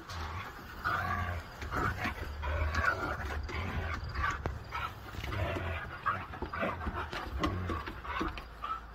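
Siberian huskies vocalising as they play-fight: a string of short, wavering whines, yips and growls, one after another.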